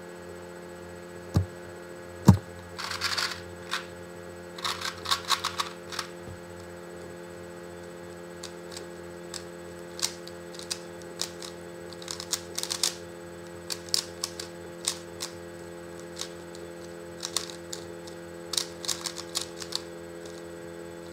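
Plastic Rubik's cube pieces clicking and clacking in quick irregular bursts of turns during a speed solve. Two sharp knocks come about one and two seconds in. A steady electrical hum runs underneath.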